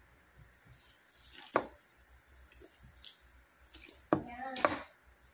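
Handling noise as ornaments are fixed onto the branches of an artificial Christmas tree: a sharp click about a second and a half in, then a short cluster of clicks and knocks around four seconds in.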